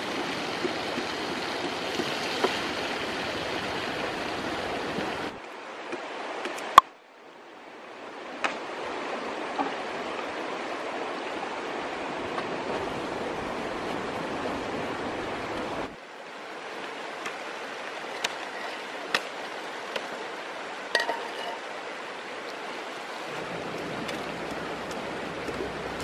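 Green chili sambal sizzling steadily as it fries in oil in a pan, with a few sharp clicks and taps of a slotted metal spatula stirring it. The sizzle breaks off abruptly a few times and comes back.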